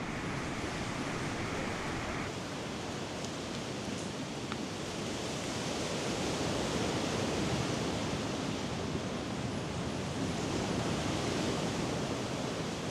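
Steady rushing of water, swelling a little louder around the middle and again near the end.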